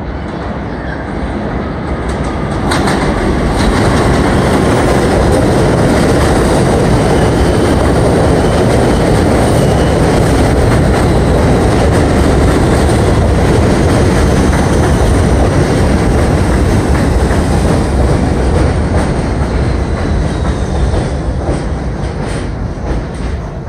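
Bombardier R62A subway train pulling into the station: wheels rumbling and clacking over the rail joints, swelling loud about three seconds in as the cars come alongside, then easing off as the train brakes to a stop. Faint falling whines run through it as it slows.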